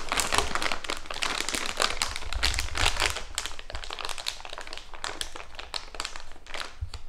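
A plastic piping bag crinkling and rustling as it is squeezed to pipe filling onto a disc of bun dough, with many rapid crackles throughout.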